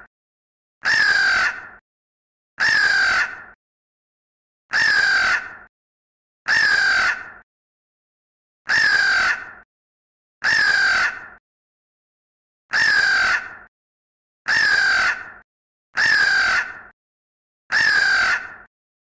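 A bird giving a loud, harsh call about every two seconds, ten times in all. Each call lasts under a second and slides slightly down in pitch, with silence between calls.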